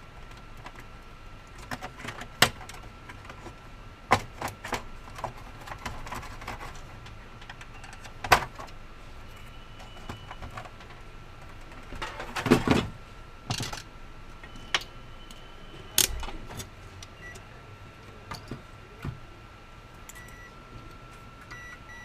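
Scattered clicks, taps and a short clatter from tools and small parts being handled on a workbench during console repair, loudest in a burst about halfway through, over a faint steady high tone.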